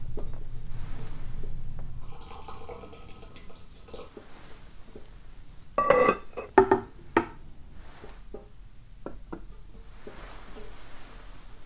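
Ceramic tea utensils being handled and set down: one sharp ringing clink about six seconds in, followed by two lighter knocks and a few soft clicks.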